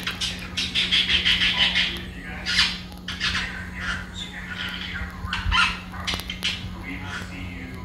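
Green-cheeked conure chattering and squawking in a quick run of short, high calls, loudest about a second in and again near the middle. A steady low hum sits underneath.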